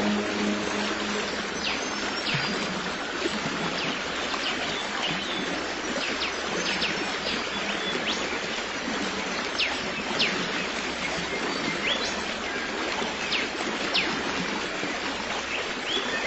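Running stream with a steady rush of water, and small birds calling over it in short, high chirps about once a second.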